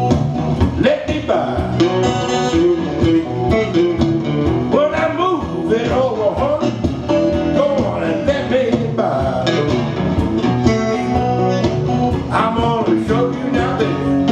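Blues band recording playing: electric guitar over bass and a steady drum beat, with singing at times.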